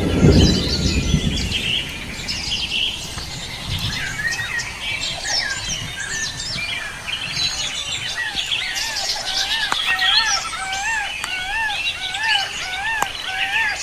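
Wild birds chirping and calling, one of them repeating a short rise-and-fall note about twice a second through the second half. A brief low rumble in the first second or so.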